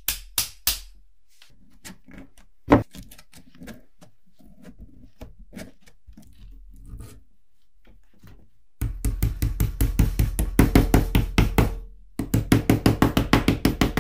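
Hammer tapping rapidly on a small transformer's laminated steel core to knock out its E-I plates, at about six to seven blows a second. A quieter stretch in the middle holds scattered metal clicks and one sharp knock as the loosened plates are worked free by hand.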